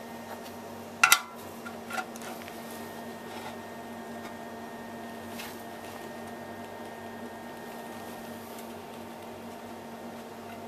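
Two sharp metal clicks about one and two seconds in as a steel exhaust pipe is handled against the top of a muffler, over a steady machine hum.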